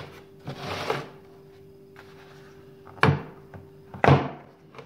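Hands handling a Kincrome plastic screwdriver-set case, then its two plastic latches snapping open: two sharp clicks about a second apart.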